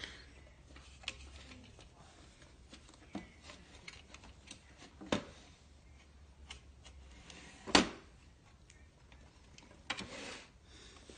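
Irregular taps, knocks and scrapes of a cat pawing at a hexagonal hole-topped toy box. The loudest knocks come about five and eight seconds in, with a short rubbing scrape near the end.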